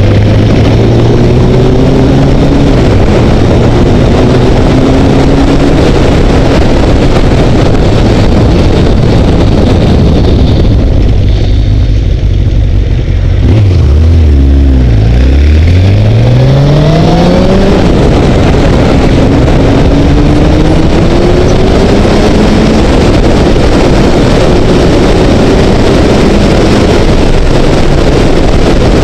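Honda CBR900RR inline-four motorcycle engine heard from the rider's helmet camera: it runs along, drops to a low idle-like note near the middle as the bike almost stops, then accelerates hard with the engine pitch rising steeply through the gears. Wind rush on the microphone builds as the speed climbs.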